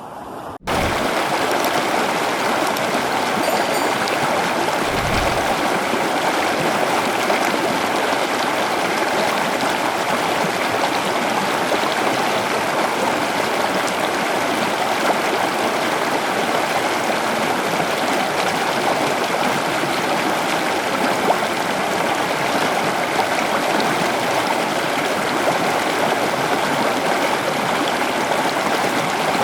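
Floodwater rushing in a steady, loud torrent, starting suddenly less than a second in.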